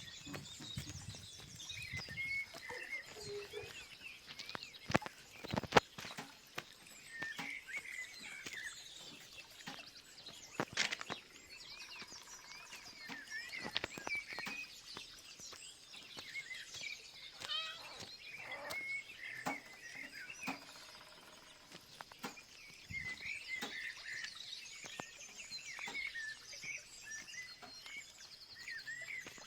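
Outdoor nature ambience of many small birds chirping and trilling, with a steady high tone behind them. A few sharp clicks or knocks stand out, the loudest about six seconds in.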